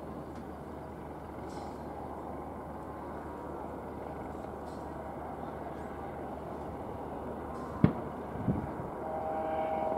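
Airbus EC120B helicopter flying low and hovering: steady rotor and turbine noise, slowly growing a little louder, with a steady whine joining in near the end. A sharp click sounds a little before the end.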